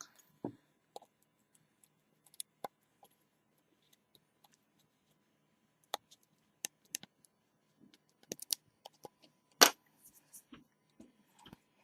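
Scattered small clicks and taps from handling the phone and its screen parts while the new display gasket is pressed down. The loudest is a sharp knock about ten seconds in.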